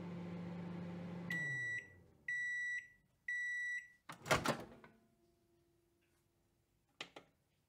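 Microwave oven humming, its hum winding down as three long beeps mark the end of the cycle, then the door unlatching with a loud clunk. A few faint clicks near the end.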